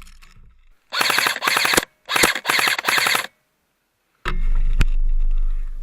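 An airsoft electric gun, the King Arms Black Rain Ordnance, firing two full-auto bursts at a very high rate of fire from its MOSFET. The first burst comes about a second in, the second follows right after it. Near the end comes a steady low rumble of wind on the microphone.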